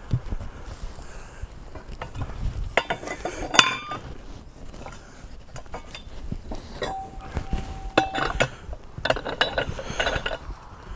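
Scattered metal clinks and knocks from a Sealey TC960 manual tyre changer as a steel car wheel is set on its spindle and locked in place, steel striking steel with brief ringing.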